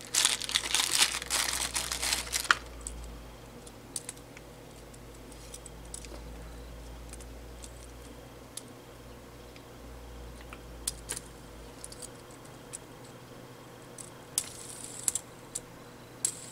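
Thin plastic wrapping crinkling as it is peeled off a fidget spinner for about the first two and a half seconds. Then quieter handling of the plastic spinner, with scattered light clicks.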